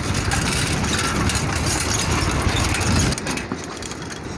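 Wind rumbling on the microphone of a phone held while riding a bicycle, mixed with the rattle of the bicycle running on the road; the rumble drops off sharply about three seconds in.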